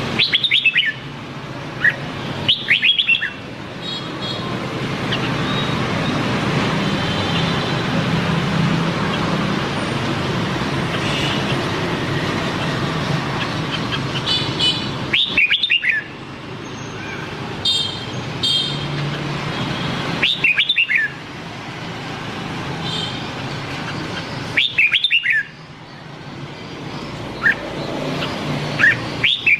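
Red-whiskered bulbul singing short, loud, warbling phrases of quickly rising and falling notes, repeated about six times with pauses between, over steady background road noise.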